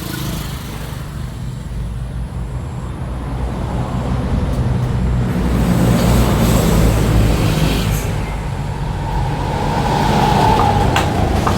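A low engine rumble swells and fades. Two sharp hammer taps come near the end.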